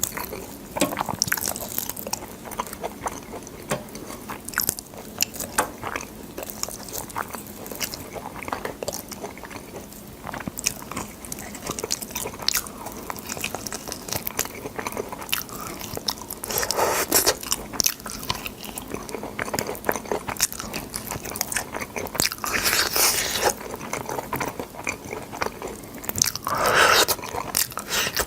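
A person chewing and biting boiled sword beans close to the microphone: a steady run of wet crunching and clicking, with longer, louder stretches of chewing about 17, 23 and 27 seconds in.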